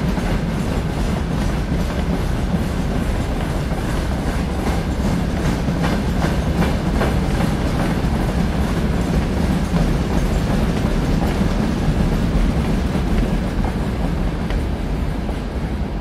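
Freight train rolling loudly and steadily along the track, its wagon wheels clattering over the rail joints.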